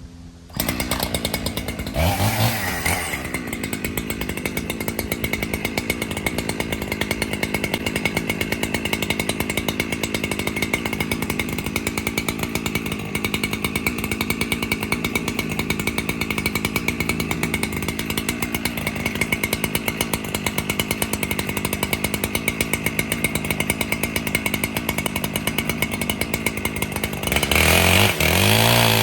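Two-stroke chainsaw starting up loud about half a second in, revving briefly, then running steadily at high speed under load as it cuts into the tree. It revs higher and louder near the end.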